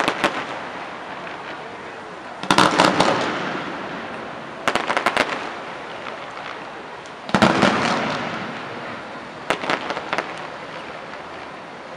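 Aerial fireworks shells bursting in five clusters of sharp bangs, about every two to two and a half seconds, each cluster trailing off in a long fading echo.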